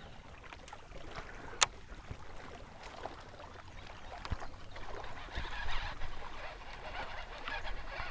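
Faint water and boat sounds on the lake, with one sharp click about a second and a half in.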